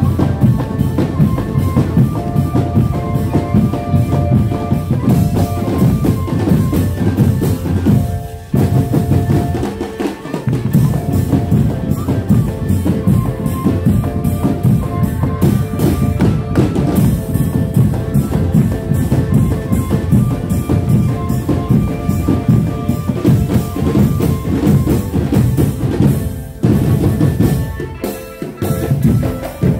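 Drumband music: marching drums, bass drum, and a stepped melody over a steady beat. The music dips briefly twice, about eight seconds in and near the end.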